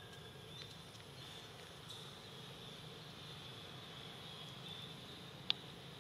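Insects in the forest making a steady, high drone, over a low outdoor background hum. One sharp click sounds near the end.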